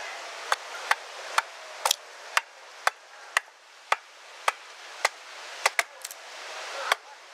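A small hatchet chopping along the edge of a wooden board held upright on a block: short, sharp strikes at a steady rhythm of about two a second.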